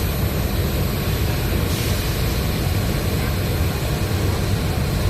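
Spider crane's engine running with a steady low rumble, and a short hiss about two seconds in.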